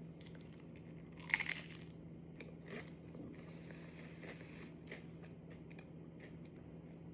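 A person biting into a crispy fried crab rangoon, with one loud crunch about a second in, then quieter crunching and chewing.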